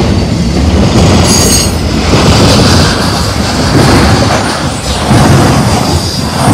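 Intermodal freight cars carrying highway trailers rolling past close by: loud, steady rumble and clatter of steel wheels on rail. There is a brief high-pitched wheel squeal about a second and a half in, and a fainter one around three seconds.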